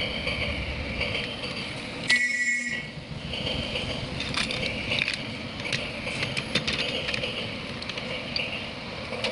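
Battery-powered toy domino train running: its small motor and plastic gears whir steadily, with a sharp click about two seconds in and scattered plastic clicks and clatter through the middle.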